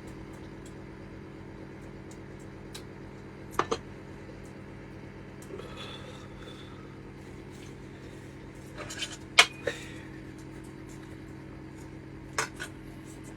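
A steady low hum with a few short clicks and knocks; the loudest cluster of knocks comes about nine to ten seconds in.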